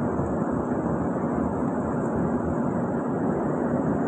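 Steady, even background rumble with no distinct events.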